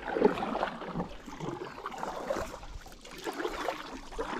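River water gurgling and splashing around a kayak, an uneven run of small splashes and trickles with no steady rhythm.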